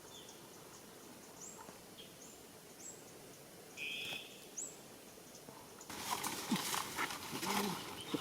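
Several short, high bird chirps that drop in pitch, a second or so apart. From about six seconds in, a louder scratchy rustling takes over.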